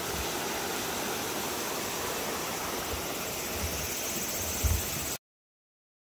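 Shallow mountain stream rushing steadily over rocks and boulders, a continuous even hiss of water; it cuts off abruptly about five seconds in.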